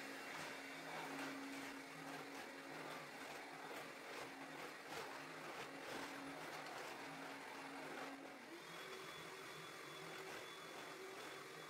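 Cordless stick vacuum cleaner running as it is pushed over a rug: a steady motor whine over rushing air, its pitch stepping up about eight seconds in.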